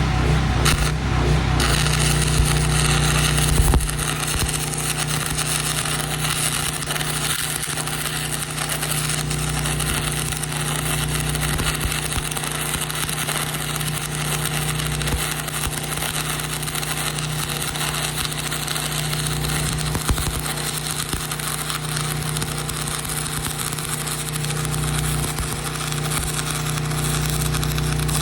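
Stick-welding arc burning continuously from about two seconds in, over the steady running of a small engine-driven Hobart welder.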